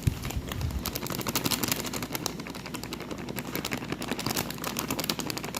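Plastic packet of icing sugar crinkling as it is handled and emptied into a bowl: a dense, irregular run of rapid crackles.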